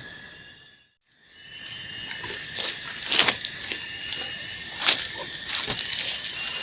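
Steady chorus of insects, several high buzzing tones at once. It cuts out briefly about a second in, then returns with a few short clicks or rustles around the middle.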